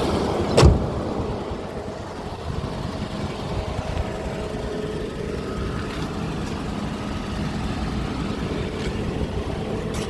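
Mercedes W126 500 SE's V8 idling steadily on LPG, running without misfire now that the loose vaporizer vacuum line is fixed. A single sharp thump sounds about half a second in, louder than the engine.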